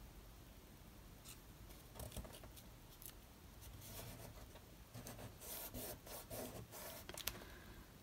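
Faint rustling and rubbing of paper as fingers press and smooth a glued vellum strip down onto a card, with a few soft scratches and a light click.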